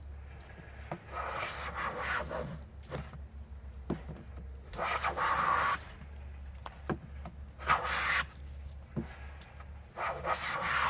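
Hand plane taking strokes along a board's edge while jointing it: four rasping passes, with light knocks between as the plane is lifted and set back. The cut is skipping in places.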